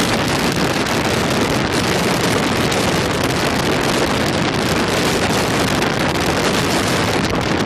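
Loud, steady rushing of wind and sea, with wind buffeting the microphone.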